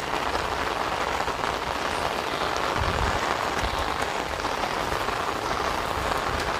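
Heavy rain falling steadily on standing floodwater and wet ground.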